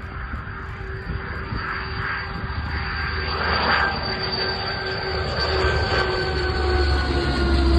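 Military aircraft engines growing steadily louder as the aircraft approaches. A high, steady whine and several steady tones drift slightly lower in pitch, and a deep rumble builds strongly near the end.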